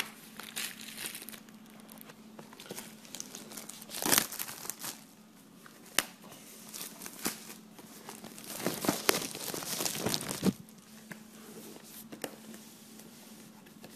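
Clear plastic shrink wrap crinkling and tearing as it is pulled off a cardboard graphics-card box, in irregular bursts: a loud one about four seconds in, a sharp click about six seconds in, and a longer stretch of crinkling from about eight to ten and a half seconds, then quieter handling of the box.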